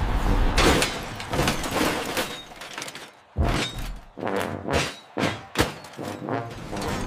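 Cartoon sound effects of scrap metal crashing and clanking together: a long crash near the start, then a series of separate thuds and clanks.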